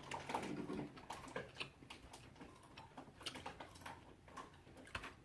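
Irregular soft clicks and mouth smacks of someone chewing food close to the microphone.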